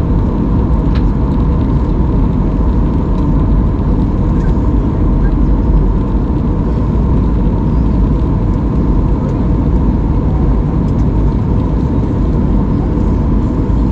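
Jet airliner cabin noise during the descent: a steady rumble of the engines and airflow heard inside the cabin, with a faint steady tone running through it.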